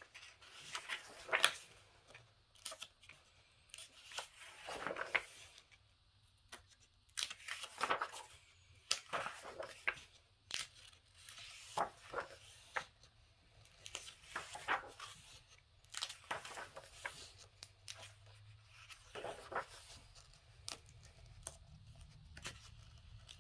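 Pages of a paperback coloring book being turned one after another in a flip-through. Each page gives a short papery swish or rustle, about one a second, at an uneven pace.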